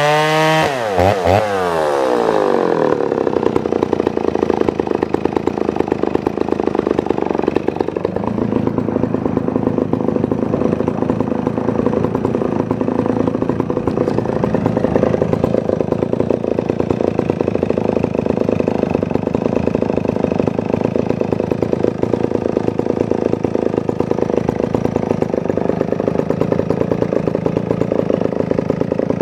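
Dolmar CA two-stroke chainsaw engine coming off full throttle just after a cut, its revs falling sharply in the first two seconds, then idling steadily.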